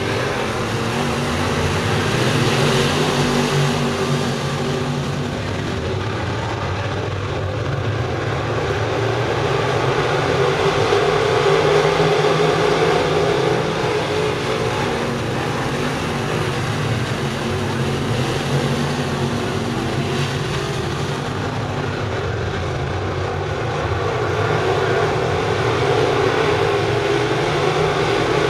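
A field of dirt-track crate late model race cars with crate V8 engines, running at racing speed around the oval. The pack's engine noise is steady and loud, swelling and easing several times as the cars come round and pass.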